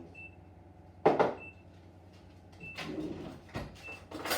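Kitchen handling noises: a sharp knock about a second in, then rustling and clatter, and another sharp knock near the end.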